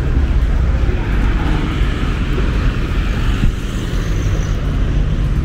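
Street traffic: a steady, loud rumble of cars passing or idling.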